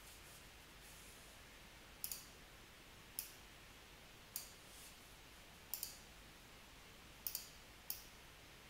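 Computer mouse clicks: about nine faint, sharp clicks at irregular intervals, several in quick pairs, as anchor points are selected and dragged into place.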